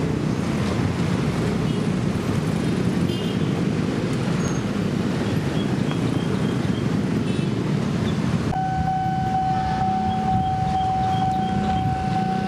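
Steady rumble of a KAI Commuter electric train running past on the rails. About two-thirds through, the sound cuts abruptly to a CC 206 diesel-electric locomotive's engine drone with a steady high tone held over it.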